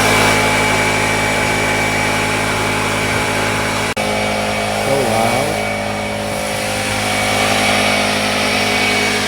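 Portable electric air compressor running steadily, its motor and pump loud, with a very brief break about four seconds in.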